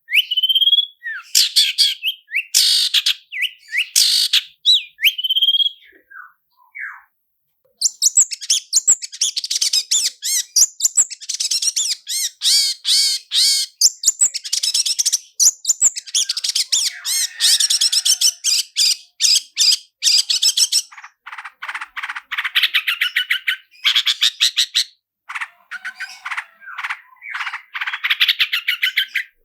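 Long-tailed shrike singing: a few short sliding whistled phrases, then, after a pause of about a second, a long run of fast rolling trills and chattering notes, ending in quick runs of sharp repeated notes.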